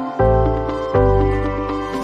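Background music: sustained chords over a low bass, a new chord striking twice, about every three quarters of a second.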